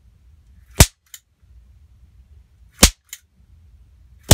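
Super Nu-Matic paper popper toy pistol firing three sharp pops, spaced about one and a half to two seconds apart, the last one near the end. Each pop comes from the spring-and-piston air blast snapping a fed wax-paper strip, and each is followed by a faint click.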